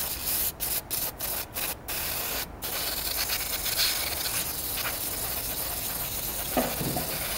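Aerosol brake cleaner spraying into a small engine's clutch housing: a few short bursts, then one long steady spray of about five seconds, from a can that is running low.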